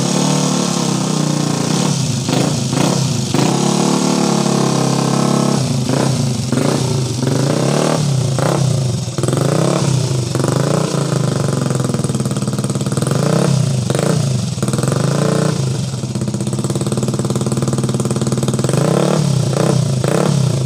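Yamaha Jupiter Z's swapped four-stroke single (Vixion cylinder block, Jupiter MX head, PWK 26 carburettor) running on a stand through an aftermarket exhaust, the throttle blipped over and over so the revs keep rising and falling back toward idle: a sound check of the rebuilt engine.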